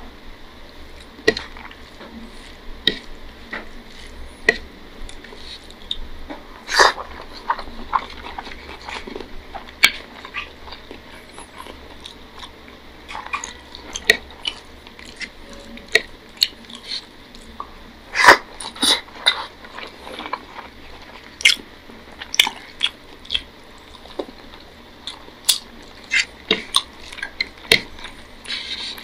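Close-miked eating: chewing and wet mouth clicks and smacks at an uneven pace as rice and curry are eaten by hand, along with fingers mixing rice and curry on the plate.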